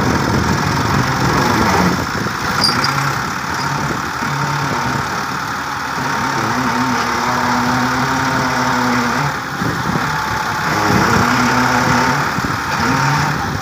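Massey Ferguson 260 tractor's diesel engine running hard under load as it strains to pull out of deep mud with a wooden beam chained to its rear tyre. The engine note rises and falls several times.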